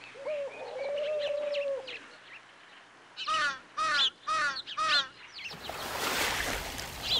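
Forest ambience of bird calls: a gliding call in the first couple of seconds, then four quick repeated calls a little over half a second apart. A swelling hiss of noise rises near the end.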